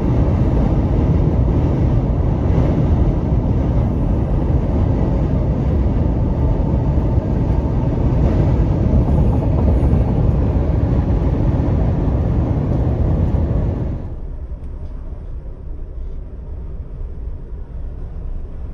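Steady road and wind noise of a pickup truck driving at highway speed, heard from inside the cab. It drops suddenly to a quieter, duller rumble about 14 seconds in.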